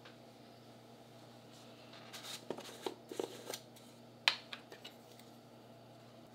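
Light handling noises of kitchen utensils at a glass mixing bowl: a run of soft rustles and clicks about two seconds in, then one sharp tap a little after four seconds, over a low steady hum.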